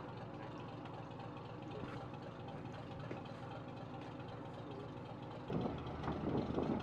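A boat's engine idling, a steady hum with a few held tones. Near the end it becomes louder and rougher.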